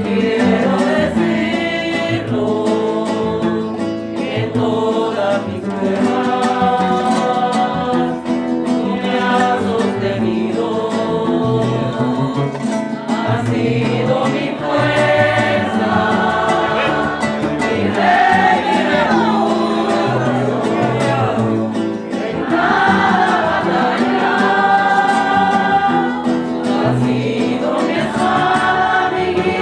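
A women's choir singing a Spanish-language hymn in unison with guitar accompaniment.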